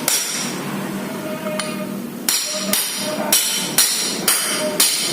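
Hammer tapping a size-27 socket used as a drift to seat a radiator water-pump seal into a Honda Vario engine case. One tap comes right at the start, then six evenly spaced taps at about two a second from a little after two seconds in.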